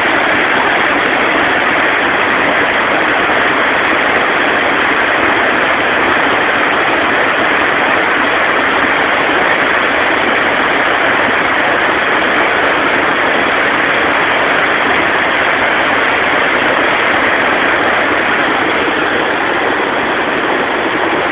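Water rushing over a river weir, a steady, loud roar.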